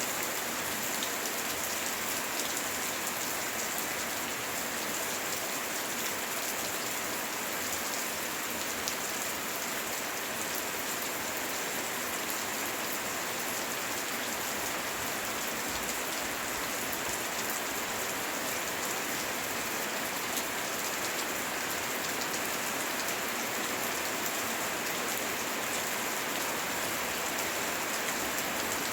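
Steady heavy rain hissing and pattering, with fine drop ticks throughout.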